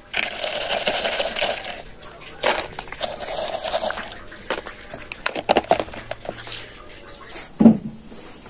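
Kerupuk bawang (dry onion crackers) rattling against each other and the plastic jar as they are scooped out, in two stretches of about two seconds and a second and a half. Scattered clicks of handling follow, with a dull thump near the end.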